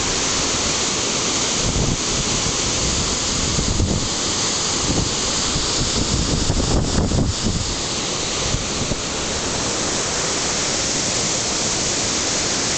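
Kaaterskill Falls running high after heavy rain, the flood water pouring over rocks in a steady, loud rushing noise. Between about two and seven seconds in, low gusts of wind buffet the microphone.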